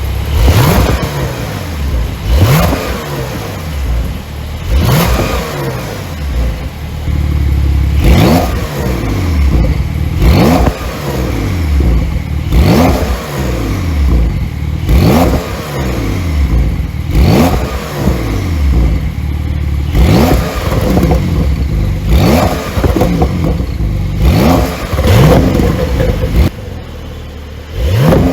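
Porsche 911 Carrera 4S twin-turbo flat-six revved again and again in short throttle blips, about one every two seconds. Each rev rises and falls back, with sharp exhaust pops on the overrun.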